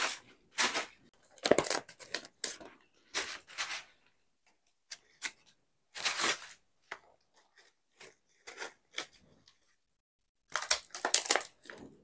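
Dry sal leaves crinkling and rustling as they are layered and pinned together with neem twig slivers into a leaf plate, in short irregular bursts of crackle, loudest about a second and a half in and again near the end.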